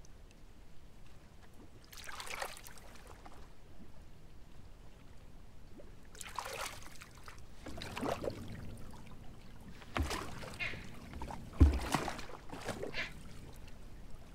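Water sloshing and splashing against a small boat in several separate bursts, with one short low thump, the loudest sound, about two-thirds of the way through.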